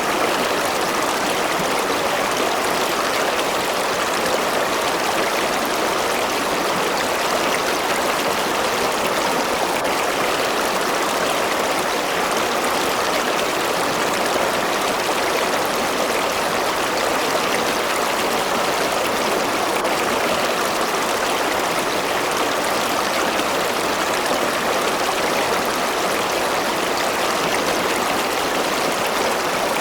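A river or stream flowing and rushing over rocks, a steady, even rush of water with no change.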